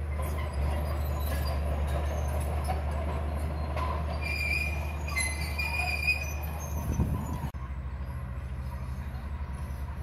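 Komatsu D31P crawler bulldozer's diesel engine running under load as it pushes soil, a steady low drone, with high metallic squeals from its steel tracks about halfway through. The sound drops abruptly about three-quarters of the way through and the engine continues as a steadier, evenly pulsing drone.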